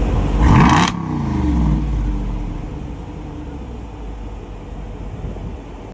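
Vehicle engine revving up in pitch, broken off sharply just under a second in, then winding down in pitch over the next second and settling to a steady, fading rumble as the vehicle slows.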